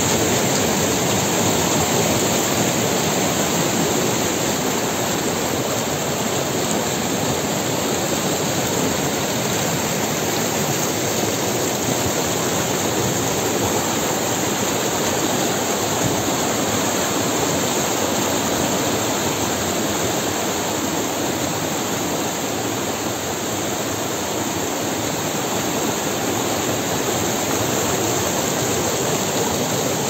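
Spring-fed mountain stream rushing and splashing as whitewater over boulders and small cascades, a steady, loud, unbroken rush.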